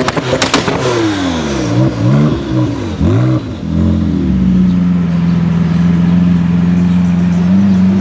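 Porsche 911 Turbo's twin-turbo flat-six being revved repeatedly while stationary, its pitch sweeping up and down, with a few sharp cracks about half a second in. From about four seconds in, it settles into a steady running note.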